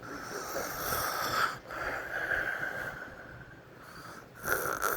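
A 12-year-old boy snoring loudly with his mouth open: rough, rasping breaths, with a loud one starting about four and a half seconds in.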